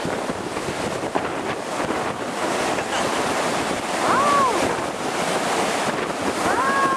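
Heavy storm surf breaking and washing in the shallows, with wind buffeting the microphone. Two short high-pitched shouts stand out, one about four seconds in and one near the end.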